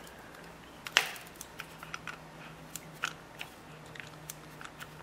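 Light metal clicks and taps from hands working a tapered alignment pin and clamp on a mill fixture holding a steel head gasket. One sharper click about a second in, then scattered smaller ticks, over a faint steady low hum.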